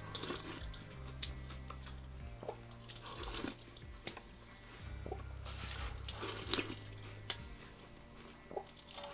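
Slurping and chewing of Cap'n Crunch cereal in milk, spooned from a large stainless steel bowl, with a few sharp clinks of the spoon on the bowl. Quiet background music with a low bass line runs underneath.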